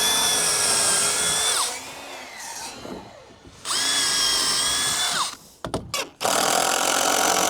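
Electric drill boring pilot holes in white oak frame pieces, so the hardwood won't split when screwed. Three runs: two short whines, each winding down as the trigger is released, then a longer run near the end.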